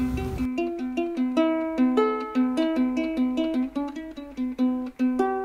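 Background music: a plucked string instrument picking a quick, even melody over a repeated low note.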